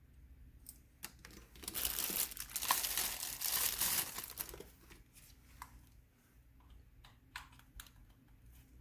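Crinkling and rustling of something being handled, starting about a second and a half in and lasting about three seconds, followed by scattered light clicks and taps.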